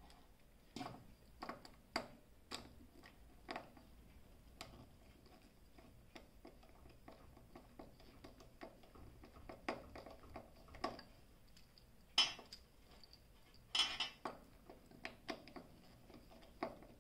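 Faint, irregular clicks and taps of a screwdriver working the terminal screws of a plastic 15 A 220 V plug while the plug and wires are handled, with two louder, longer clatters about twelve and fourteen seconds in.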